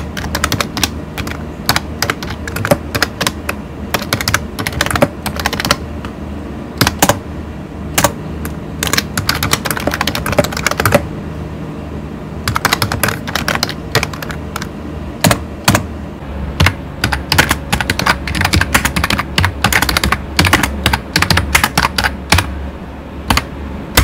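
Fast typing on a pink steampunk-style membrane keyboard with round typewriter-style keycaps: a dense run of key clicks over rubber domes, a little squeaky.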